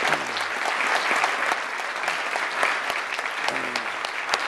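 Audience applauding steadily, a roomful of people clapping, with a brief voice or two rising out of it.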